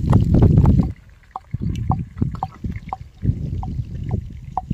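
A pestle pounding garlic and ginger in a small metal mortar, many quick heavy strokes, stopping about a second in. Then a small knife cuts a tomato into wedges over a steel plate, the blade ticking against the plate with a short ringing ping roughly twice a second.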